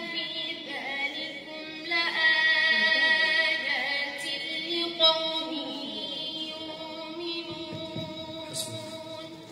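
A woman reciting the Quran in melodic tajweed style, drawing out long held notes with ornamented turns of pitch. Fresh phrases begin about two and five seconds in.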